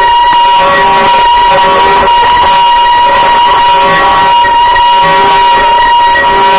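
Brakes squealing loudly and without a break under braking on a downhill, one steady shrill tone with fainter overtones. The owner puts the squeal down most likely to worn brake pads.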